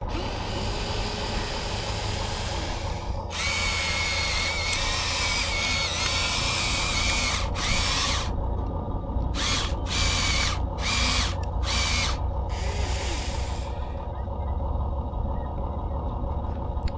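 Huina radio-controlled excavator's small electric motors and gears whirring in bursts as its functions are worked: one long run of several seconds, then a string of short on-off bursts, over a steady low hum.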